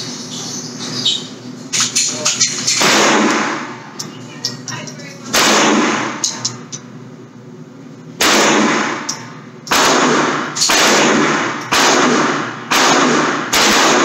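Gunshots: about eight shots, each a sharp crack trailing off over about a second, the last six fired about a second apart.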